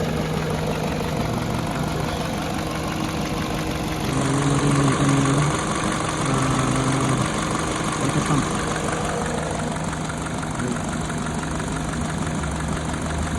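Peugeot 207 petrol engine idling steadily at normal operating temperature, with the electric radiator fan running. The idle is smooth, with no misfire or stumbling.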